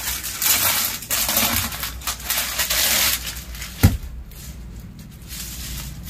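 Crinkling and rustling of crisp organza suit fabric and plastic packaging being handled and unfolded for about three seconds, then a single thump a little before four seconds in, followed by fainter rustling.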